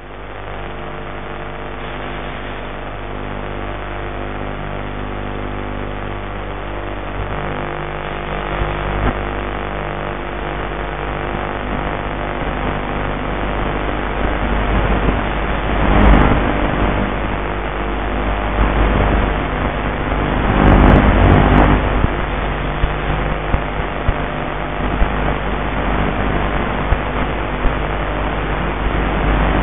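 Electric pusher motor and propeller of a Mini Talon model plane in flight, heard from on board: a steady buzzing drone whose pitch shifts a few times with the throttle. Rushing air noise swells strongly twice, about halfway through and again a few seconds later.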